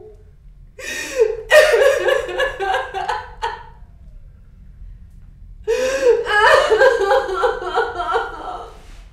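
A woman's high voice breaking out in two long bursts of gasping, sobbing cries, each about three seconds, with a short pause between.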